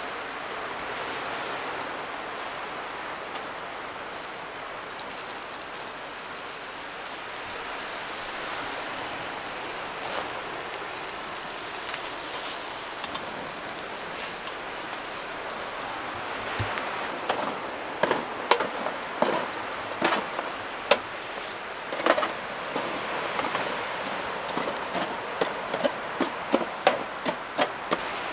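Charcoal grill: a steady sizzling hiss, then from about two-thirds of the way in, many sharp crackles and pops coming thicker and faster as fat dripping from the basted fish flares up on the hot coals.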